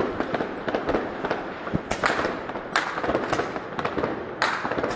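Many fireworks and firecrackers going off at once, a dense run of bangs and crackles with several louder bangs standing out.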